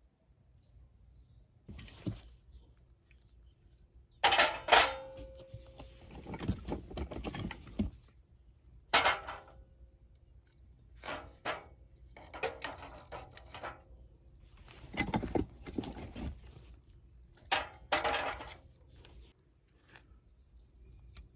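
Camping gear being handled: irregular knocks, clinks and rustles, one with a short metallic ring about four and a half seconds in, the loudest near the start and again around fifteen and eighteen seconds.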